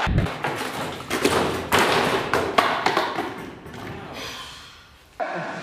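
A heavy thud, then a quick string of knocks and taps over the next three seconds, thinning out and fading away.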